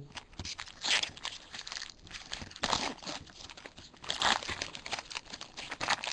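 Trading-card pack wrappers being torn open and crinkled while the cards are handled: a run of crinkling and rustling with louder crackling bursts about every one and a half seconds.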